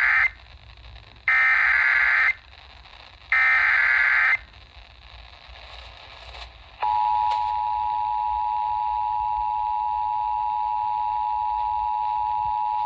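Emergency Alert System SAME header: the end of one buzzy digital data burst, then two more one-second bursts about two seconds apart. About seven seconds in, the steady two-tone EAS attention signal starts and holds, the alarm that opens a flash flood warning broadcast on FM radio.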